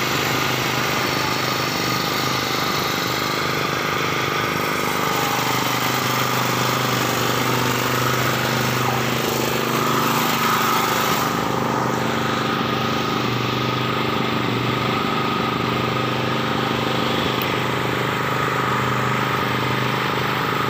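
A motor running steadily: a constant low hum with a fainter high whine, not changing in level.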